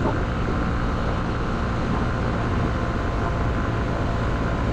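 Honda CB125F's air-cooled single-cylinder engine running steadily under way, with wind rushing over the rider's microphone.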